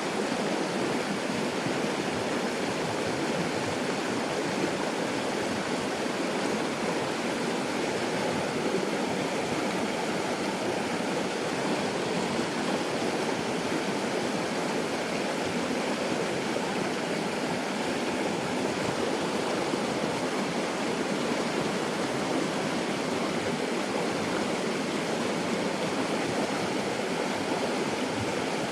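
Steady rush of flowing water in a jungle headwater stream, an even unbroken noise with no separate splashes.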